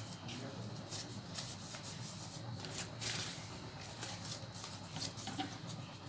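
Origami paper being folded and creased by hand: irregular rustling and crinkling of the sheet.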